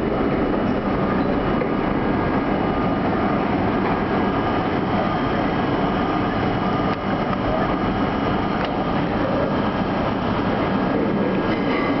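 R32 subway train running steadily through a tunnel, heard from inside the lead car: a continuous rumble and rattle of wheels on rail, with a faint steady high whine running through it.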